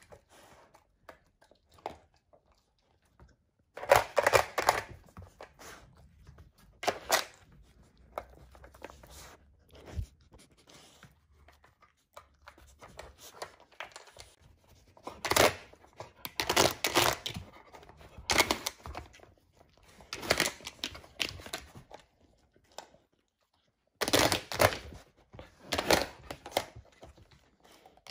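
A dog nosing and pawing at a plastic puzzle feeder, moving its pieces: irregular bursts of plastic clacking, rattling and scraping with quieter gaps between. Near the end the pieces are the sliding tiles of a slider puzzle.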